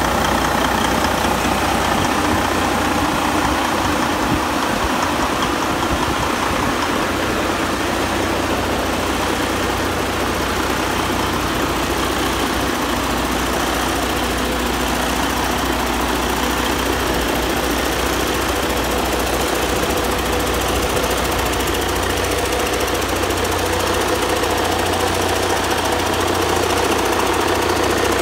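Detroit DD16 inline-six diesel engine running steadily on a test stand, with no revving.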